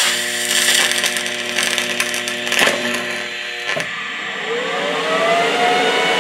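TIG welding arc burning with the polarity reversed, torch on positive and ground on negative. The arc crackles throughout, a buzzing hum runs through the middle, and a rising whine comes in over the last couple of seconds. The arc is not welding properly: it spits spatter and balls the tungsten.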